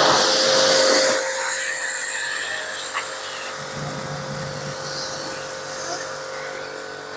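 Pressure washer running as its foam-cannon lance sprays soap foam onto a car: the steady hum of the washer's motor under the hiss of the spray, loudest in the first second.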